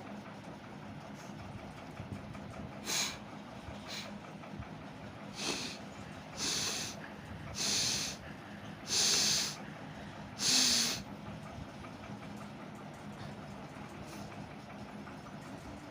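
A person blowing their nose repeatedly: two short blows, then four longer, louder blasts of air through the nose about a second apart.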